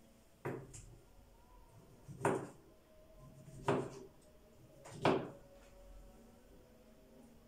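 A kitchen knife knocks four times on a cutting board as it cuts through peeled oranges, the strokes about a second and a half apart.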